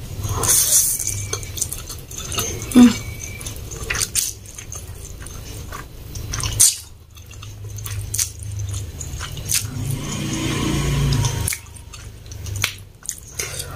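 Close-miked slurping and chewing of a mouthful of fried instant noodles, with many sharp wet smacking clicks.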